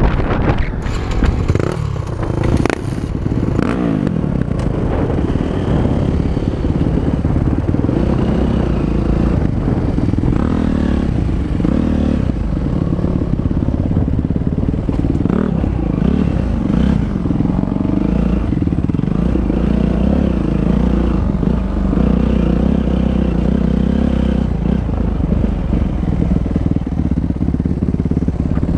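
Dirt bike engine running under way, its revs rising and falling, with a few sharp knocks and clatter in the first few seconds.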